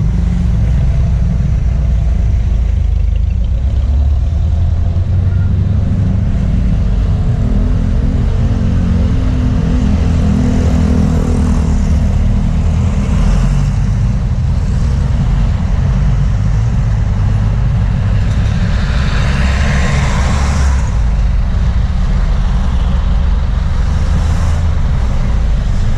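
Road traffic: vehicles driving past over a steady low rumble, with one passing loudest about twenty seconds in.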